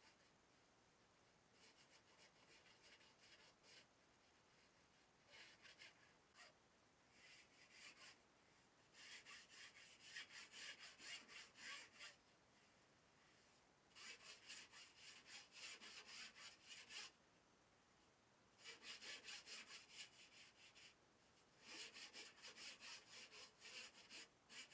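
Faint rasping of a Surform tool shaving the foam rails of a plywood paddleboard to a chamfer. It comes in several runs of quick back-and-forth strokes with short pauses between them.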